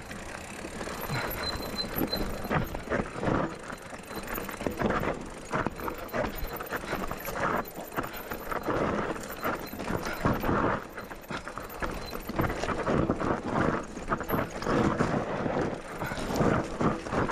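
Mountain bike descending a steep, loose, rocky trail: tyres crunching and sliding over gravel and stones, with an irregular clatter of the bike jolting over rocks that grows louder and busier near the end.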